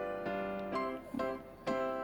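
Background music: a light keyboard tune, a few held notes struck one after another.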